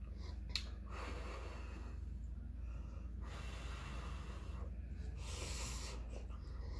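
A person blowing breathily on a forkful of hot spaghetti and slurping it in, with a sharp click about half a second in.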